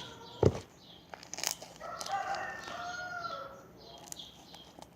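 A rooster crowing once in a long drawn-out call, about two seconds in, preceded by a couple of sharp knocks.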